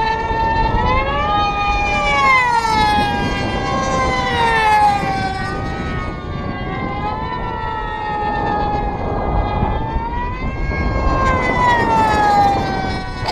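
Several Q40 pylon-racing model airplanes, their small two-stroke glow engines screaming at full throttle, the pitches sweeping up and down and crossing as the planes fly past.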